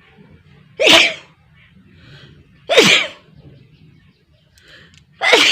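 A person sneezing three times, about two seconds apart, each a sudden loud burst with a falling voiced cry, the third near the end. A faint in-breath comes before the second and third sneezes.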